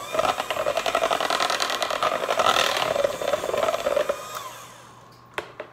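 KitchenAid electric hand mixer running, its beaters turning through thick chocolate cupcake batter in a mixing bowl, then dying away about four seconds in as it is switched off. Two sharp knocks follow near the end.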